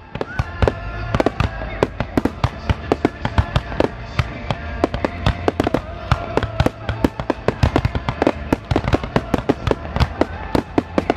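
Aerial fireworks bursting in a rapid barrage: several sharp bangs and crackles a second, with music playing underneath.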